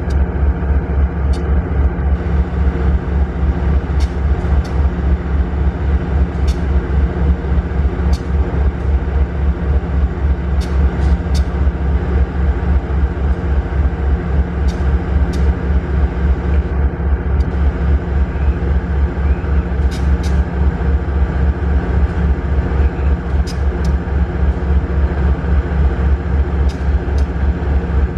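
Diesel-electric locomotive engine running close by with a steady, rhythmic low throb.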